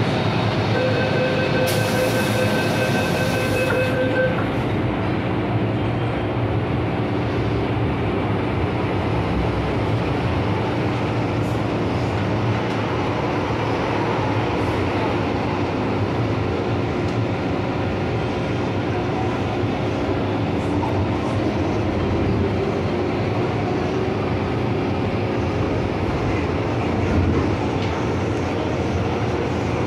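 MTR Tsuen Wan Line M-Train running on the line: a steady rumble of wheels on rail with traction and running noise. Near the start a steady electronic tone sounds for about three and a half seconds, with a burst of hissing over part of it.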